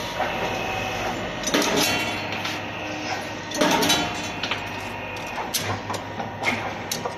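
U-clamp bending machine running: motor and gear drive humming steadily while the bending head turns, with metal clattering and clanking as it works a steel strip around the die. The clatter is louder about two and four seconds in, followed by a few sharp clicks.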